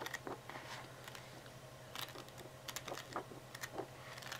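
Pages of a designer paper pad being leafed through by hand: faint, scattered ticks and flicks of paper sheets, over a low steady hum.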